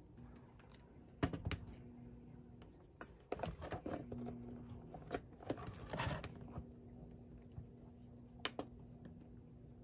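Handling noise as a laptop is set down and shifted on a box: light knocks, taps and rustles, busiest in the middle. A faint steady hum runs underneath, and there is a sharp click near the end as the mini projector's top button is pressed.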